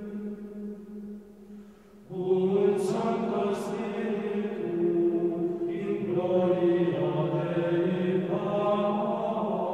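A choir chanting slowly in held notes. The singing fades between phrases about a second in and comes back a little after two seconds.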